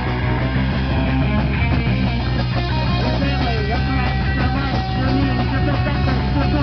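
Live punk rock band playing: electric guitars and a drum kit, loud and steady, through a small outdoor PA.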